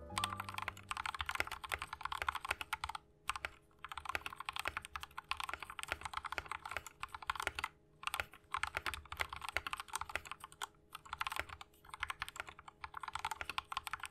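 Continuous typing on a YUNZII KC-68 65% mechanical keyboard with stock factory-lubed Gateron Yellow linear switches and clip-in stabilizers. The board has a plastic case and plate and PBT keycaps. Dense runs of keystrokes are broken by a few brief pauses.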